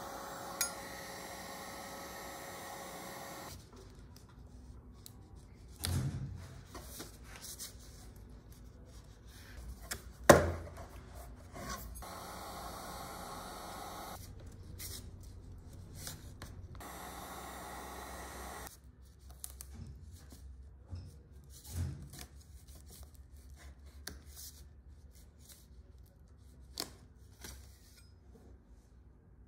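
Hand-tool work on an old wooden case: a string of knocks, the loudest about ten seconds in, with rubbing and small clicks between them. In some stretches a steady hum sits underneath and cuts in and out abruptly.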